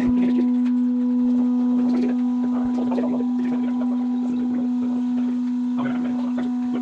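Steam locomotive whistle sounding one long, steady, low blast.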